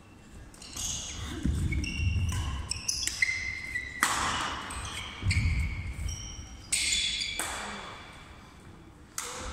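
Badminton rally on a wooden sports-hall floor: sharp racket strikes on the shuttlecock echoing in the hall, the loudest about four seconds in and just before the end, with short squeaks of the players' shoes and the thud of their footsteps.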